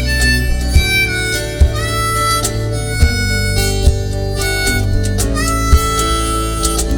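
Live band playing an instrumental passage of the song: a held lead melody with sliding notes over bass and guitar, with sharp drum hits.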